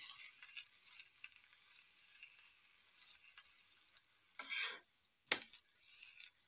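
Oil sizzling under a methi paratha frying on a flat griddle (tawa), with a metal spatula pressing it. There is a brief scrape a little past four seconds in and one sharp tap of the spatula on the pan about five seconds in.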